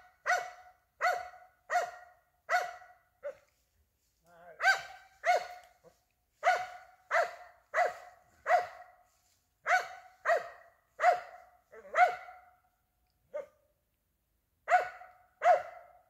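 A squirrel-hunting dog barking over and over, a sharp bark about every two-thirds of a second in runs broken by two short pauses: the steady bark of a squirrel dog treed at a tree.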